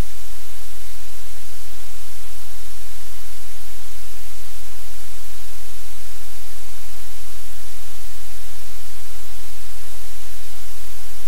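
Loud, steady static hiss over a low electrical hum, unchanging throughout: noise on the livestream camera's audio feed.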